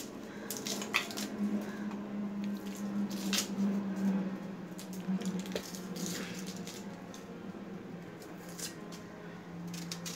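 A red onion being peeled and cut by hand with a small knife: the papery skin crackles and tears, with irregular small clicks and scrapes from the blade. A steady low hum runs underneath.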